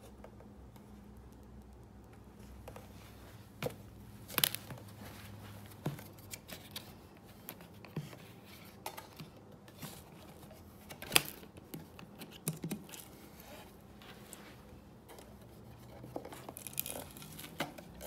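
Clicks, knocks and rustling as the clear plastic dust canister of a Dirt Devil Razor Pet bagless vacuum is handled and emptied of packed dirt and hair. The sharp clicks are spaced a second or two apart, the loudest a little past the middle, with rustling toward the end as the debris drops out.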